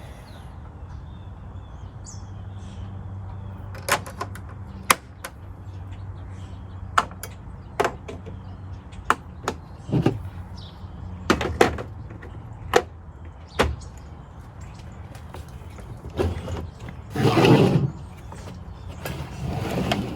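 Hand work on a portable jump starter's case and battery: scattered sharp clicks and knocks of plastic and tools being handled, then a louder scraping slide about 17 seconds in as the battery is worked out of the case. A steady low hum runs underneath.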